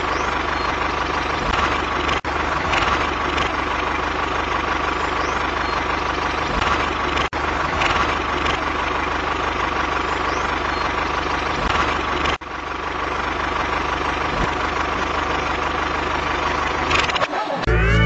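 Tractor engine running steadily at idle-like speed, a looped engine sound that drops out for an instant about every five seconds.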